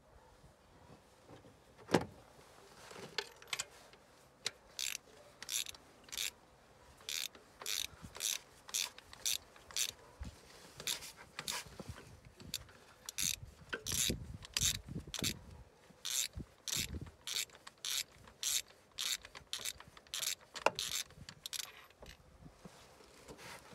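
Ratchet wrench with a long spark-plug socket clicking in uneven runs of short, sharp ticks as a spark plug is unscrewed, after a single knock about two seconds in.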